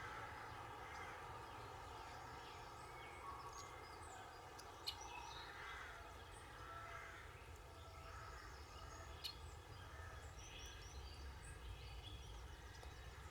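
Faint birdsong, many short scattered chirps, over a low steady rumble of background noise, with two small clicks about five and nine seconds in.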